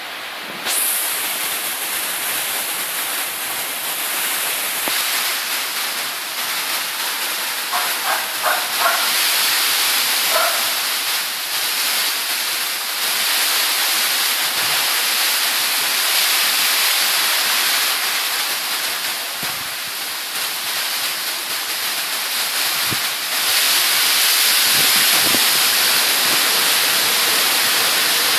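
Rain falling hard, a steady hiss that gets louder about twenty-three seconds in.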